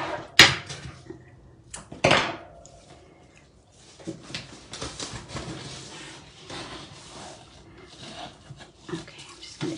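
Kraft paper and twine rustling and rubbing as twine is wrapped around a large paper-wrapped package, with two sharp knocks in the first couple of seconds, the first the loudest.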